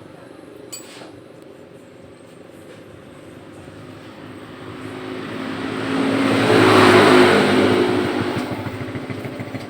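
A motor vehicle passing by, its engine and road noise swelling to a peak about seven seconds in and then fading.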